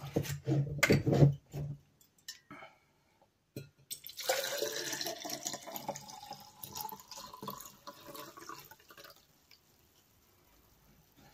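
Cloudy cider poured from a 2-litre plastic bottle into a tall drinking glass: liquid splashing and gurgling into the glass, starting about four seconds in and lasting about five seconds.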